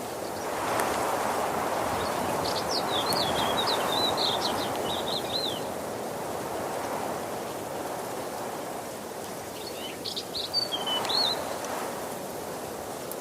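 Waterfall rushing steadily, swelling louder about a second in. A bird chirps in two short bouts of quick, high chirps over the rush.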